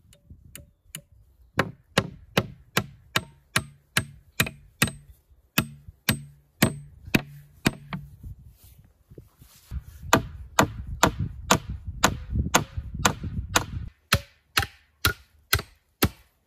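Nails being driven into a wooden tabletop with the back of an axe: a long run of sharp, evenly spaced blows, about two to three a second, with a faster, denser flurry of blows in the middle.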